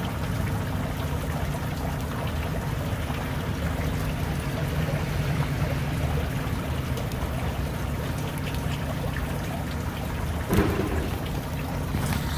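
Steady hiss with a low, even hum beneath it, and a brief knock about ten and a half seconds in.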